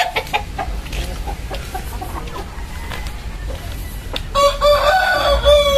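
Chickens clucking in short calls, then a rooster crowing: one long, loud crow that begins near the end and starts falling in pitch.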